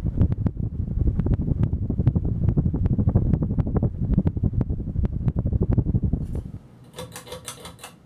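Air from the spinning blades of a Kichler Bentzen ceiling fan buffeting a microphone held close beneath it: a loud rumble with regular gusts, several a second. It drops away about six and a half seconds in, and a short rattle of light clicks follows near the end.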